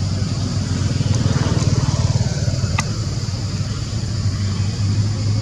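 A motor engine running steadily, a little louder from about one to two and a half seconds in, over a steady high-pitched hiss.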